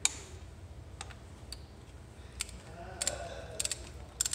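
Sharp metallic clicks from a torque wrench and socket on the flywheel-to-crankshaft bolts as they are taken to a first torque of about 40. There are single clicks about a second apart, then quick pairs and triples near the end.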